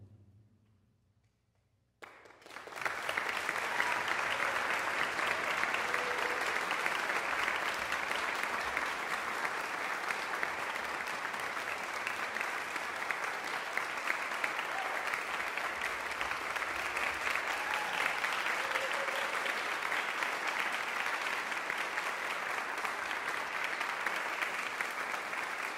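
Audience applauding. The applause starts abruptly about two seconds in, after a moment of silence, and goes on steadily, with a few faint calls heard within it.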